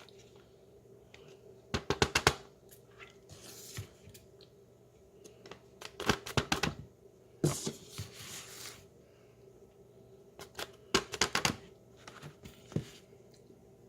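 Tapioca starch being handled and pressed: three bursts of quick crisp clicks and crunches, with brief rustling between them.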